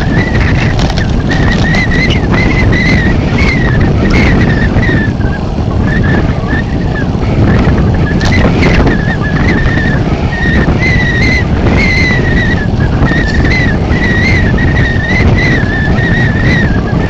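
A vehicle on the move in a blizzard with strong wind: a heavy, steady rumble of wind and road noise. Over it a high whistle wavers in pitch and comes and goes.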